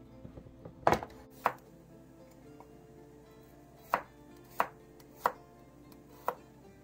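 Kitchen knife slicing garlic cloves on a bamboo cutting board: about six separate sharp knocks as the blade meets the board, the later ones coming about two-thirds of a second apart.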